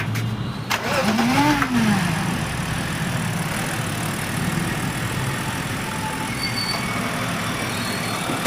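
BMW car engine blipped once about a second in, its pitch rising and falling back, then idling steadily.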